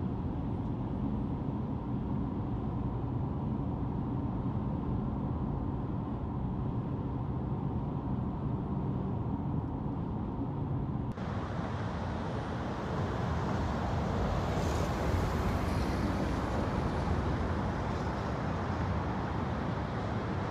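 Car driving on a freeway heard from inside: a steady low rumble of engine and tyres with a faint hum. About eleven seconds in it changes abruptly to a louder, hissier noise.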